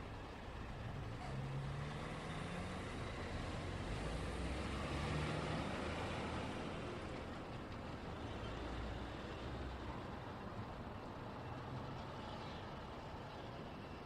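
Road traffic passing in a steady stream of tyre and engine noise, with a low engine note rising in and out; the noise swells to its loudest about five seconds in as a vehicle goes by, then eases off.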